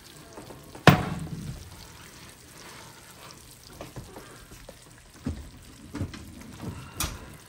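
A loud metal clunk about a second in, then the faint crackle and sizzle of a cream sauce bubbling in a hot pan fresh from the oven, with a few softer knocks.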